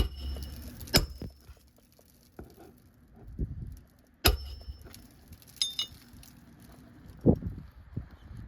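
A hammer striking a metal roof snake tool to drive roofing nails under an asphalt shingle. Several sharp strikes, a second to three seconds apart, most of them with a brief metallic ring.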